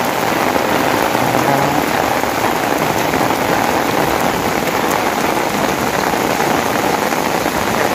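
Steady rain falling: a dense, even hiss that holds at the same level throughout, with no pauses.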